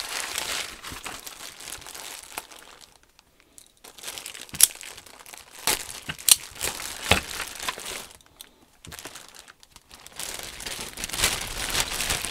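Clear plastic bags and packing paper crinkling as they are handled and unwrapped by hand, in irregular bursts with short pauses and a few sharp clicks around the middle.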